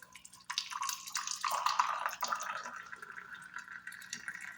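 Hot masala tea being poured into a cup: a splashing stream starts about half a second in, is loudest early on and then gradually quietens, its pitch rising slightly as the cup fills.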